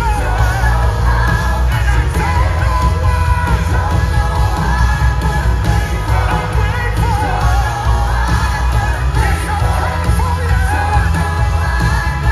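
Live worship band playing loudly, with singing over a heavy, steady bass.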